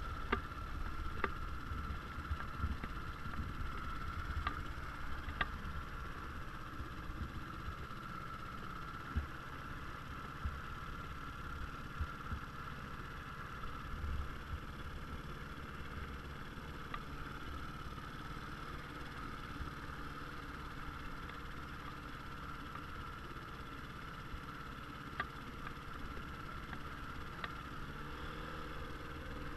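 A small boat's outboard motor running steadily, with a few light knocks.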